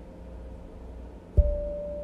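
Steel tongue drum music: a ringing note fades, then a new, slightly higher note is struck about a second and a half in and rings on.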